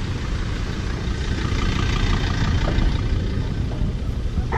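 Engine of a four-wheel-drive bogged in soft sand running steadily with a low rumble while it is pulled out.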